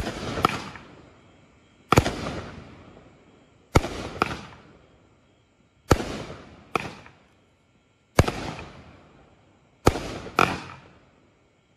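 A Pyro Diablo "Mr. Rex" 200-gram consumer fireworks cake firing its shots about every two seconds. Each is a sharp bang with a fading tail, and several are followed about half a second later by a second report.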